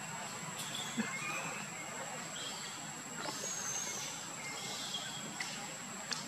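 Outdoor ambience: a steady hiss under a constant thin high tone, with scattered short high chirps and whistles. Two sharp clicks, about a second in and near the end.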